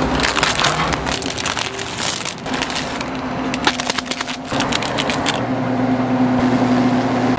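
Plastic instant-ramen packet crinkling and crackling as it is torn open and handled. From about four and a half seconds, a steady low hum from the ramen cooking machine as it dispenses water into the foil tray.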